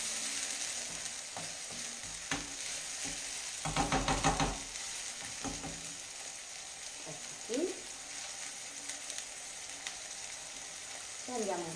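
Chopped sun-dried tomatoes and 'nduja frying in oil in a pan, sizzling steadily while being stirred with a wooden spoon, with a few knocks and scrapes of the spoon against the pan and a louder scrape about four seconds in.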